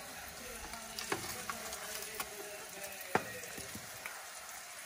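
Roasted potatoes sizzling on a hot foil-lined oven tray. Scattered light clicks and scrapes come through as a wooden spatula turns them, with a sharper click about a second in and another about three seconds in.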